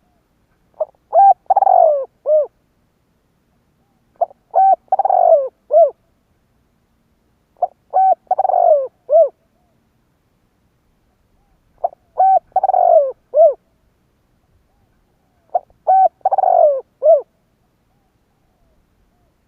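Spotted dove cooing: five repeated song phrases, each a few short coos around one longer falling note, spaced a few seconds apart.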